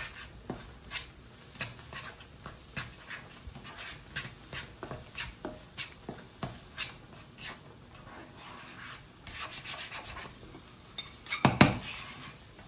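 Spatula scraping and tapping against a wok as eggs are stirred: irregular short clicks and scrapes, one or two a second, with a louder knock near the end.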